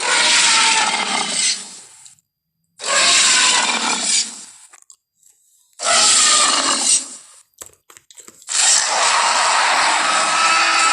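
Four loud Tyrannosaurus rex roar sound effects in a row, each one to two and a half seconds long, with the last the longest.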